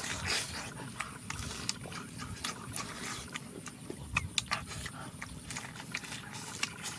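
Close-up eating sounds: chewing and mouth smacking, with many irregular sharp clicks.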